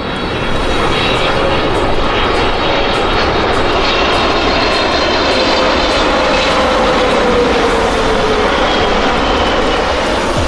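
Airliner jet engines and airflow heard from inside the passenger cabin: a loud, steady rush with a faint whine that slowly falls in pitch near the end, around the time of the landing in Manila.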